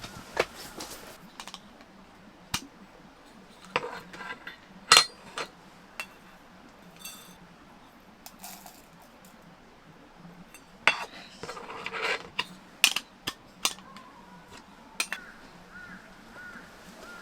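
Dishes and utensils clinking and knocking as they are handled, in scattered sharp strikes. The loudest knock comes about five seconds in, and a quick run of clinks follows from about eleven to thirteen seconds.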